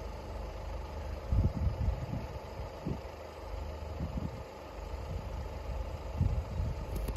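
Wind buffeting the microphone in irregular low gusts, loudest about a second and a half in, over a steady low engine-like rumble.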